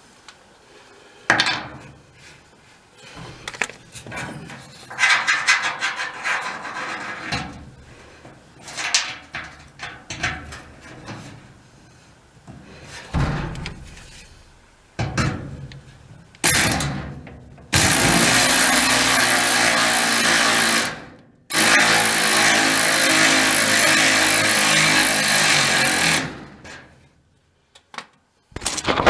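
Power drill running in two long bursts of several seconds with a short stop between, after a stretch of knocking and rattling from metal parts being handled.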